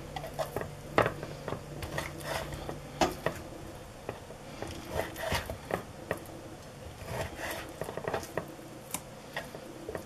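Kitchen knife cutting raw meat on a wooden cutting board: irregular knocks and taps of the blade against the board.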